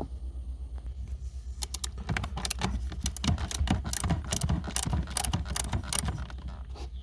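Ratchet clicking in quick runs as a Torx bolt holding the airbag is backed out.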